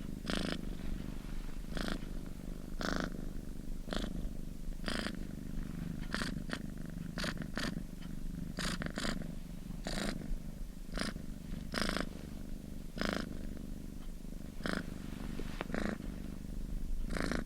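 Domestic cat purring continuously: a steady low rumble with short, brighter rasps roughly once a second.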